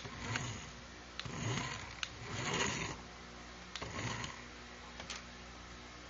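Toy remote-control car's small electric motor and plastic gears whirring in about four short spurts as it is driven back and forth, with sharp clicks between the spurts.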